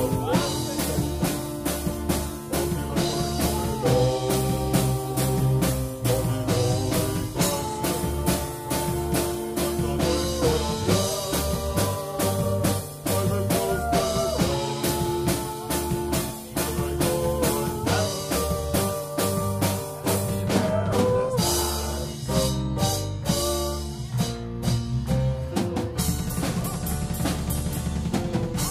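A band playing live: acoustic guitar and drum kit keeping a steady beat under a sustained melody. About three quarters of the way through, the beat breaks into separate hits before settling back into a steady rhythm.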